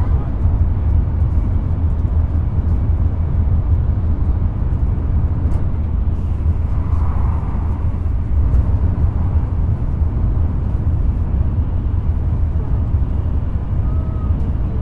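Steady low rumble of an N700-series Nozomi shinkansen running, heard from inside the passenger car: wheel, track and air noise with no break.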